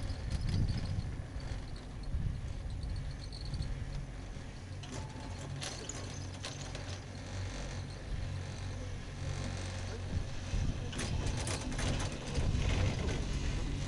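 Anzen Sakudo pair chairlift running: a steady low mechanical hum with two clusters of clattering clicks, about five seconds in and again about eleven seconds in.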